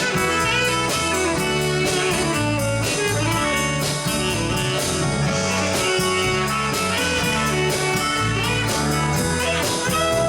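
Live rock band playing an instrumental passage: guitar to the fore over bass and drums with a steady beat.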